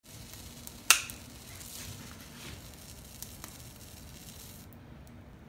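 Confetti candle fizzing with a steady hiss as it burns, with one sharp snap about a second in. The hiss cuts off suddenly near the end, and no confetti burst follows: the candle has fizzled out.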